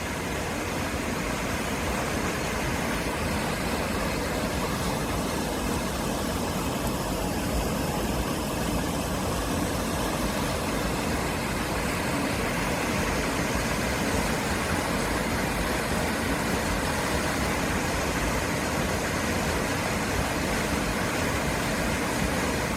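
Steady roar of rushing river water.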